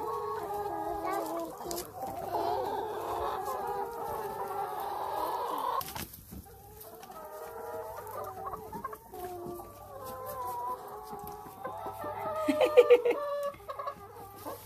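A flock of brown laying hens clucking all around, many voices overlapping. The chorus thins to scattered clucks about six seconds in, and a few louder, sharper squawks come near the end.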